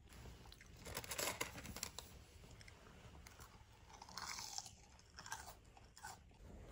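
Crunchy chewing and biting of fried chicken, in faint irregular bursts.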